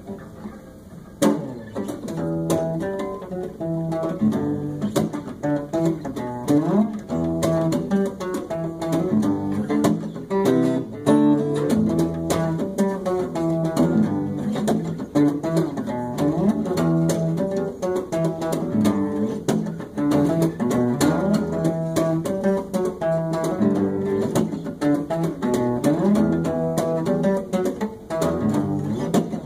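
Guitar music starting about a second in: picked notes in a repeating pattern over a steady low bass line, the instrumental intro before the vocals of a song.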